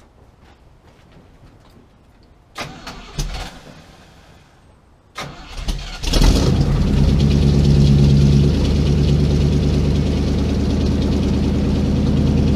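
A 1983 Chevy K10's 350 small-block V8 starting cold: a few knocks, then the starter cranks briefly and the engine fires about six seconds in. It settles into a steady idle through shorty headers, true dual 2-inch pipes and glass-pack mufflers.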